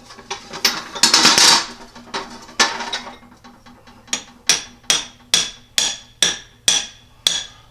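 Metal-on-metal work on a lathe chuck jaw: a loud metallic rattle and scrape about a second in, then a run of sharp, ringing metallic taps, about two a second, from about four seconds in, as a tight-fitting jaw is worked into its slot.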